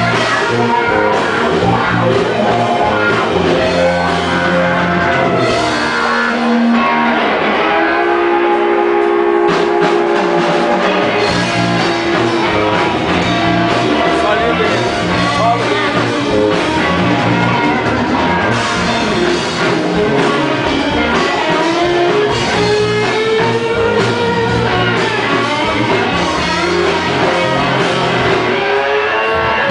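Live blues band playing an instrumental: a guitar solo over bass and drums, with sliding, bent notes, several rising bends in the second half.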